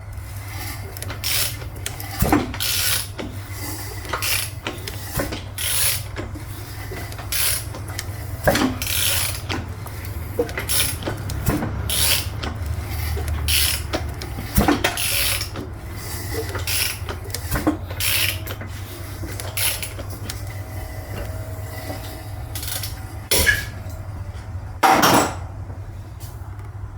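Hand tools working on engine parts: irregular clicks and short runs of ratchet-wrench clicking with metal clanks as bolts are run in during reassembly, over a steady low hum.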